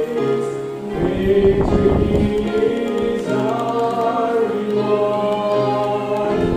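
Gospel song: a man singing a solo with upright piano accompaniment, holding long notes, with deep piano chords struck about a second in and again near the end.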